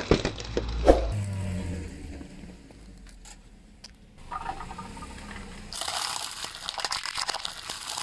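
Car tyre rolling over a tray of disposable plastic lighters and crushing them, with sharp cracks over a low rumble, the loudest crack just before a second in. From about six seconds in, dense crackling as the tyre presses onto a clear plastic egg carton.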